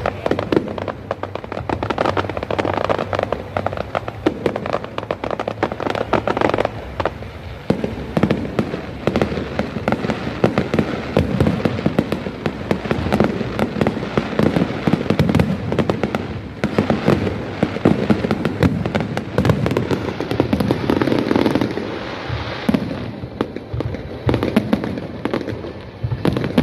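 A fireworks display going off continuously: a dense barrage of rapid bangs and crackling with no pause.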